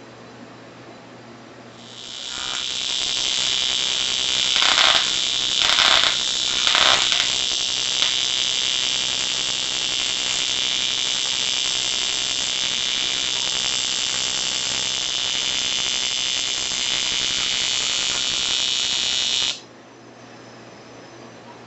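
TIG welding arc from a TIG AC/DC 220P welder on an aluminium air-conditioning tube: a loud, steady, high-pitched electric buzz. It comes in about two seconds in, swells three times around the middle, and cuts off suddenly near the end when the arc is broken.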